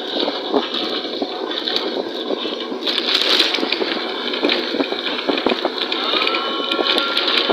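Inside a moving bus: steady road noise with constant rattling and clicking from the body and fittings. A thin steady tone comes in about six seconds in and holds.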